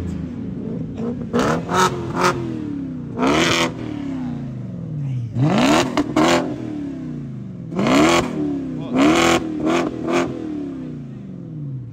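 Turbocharged car engine revved hard in place about six times. Each rev climbs quickly, then the pitch sinks slowly back toward idle, and a loud rush of air sounds at each peak.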